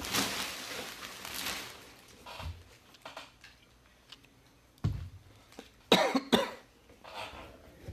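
Packaging crinkling in the first second or so, then a few small handling clicks. A short cough of two or three quick bursts comes about six seconds in and is the loudest sound.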